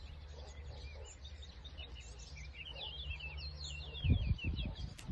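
Small birds chirping and twittering in quick runs of short notes, busiest in the middle, over a steady low rumble of wind on the microphone. Near the end come a few loud low thumps of wind or handling.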